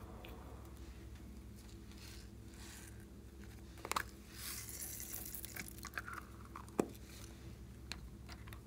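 Slime being squished and mixed by hand: soft, crackly squelching, with a few sharp clicks and pops, the loudest about four seconds in and again near seven seconds.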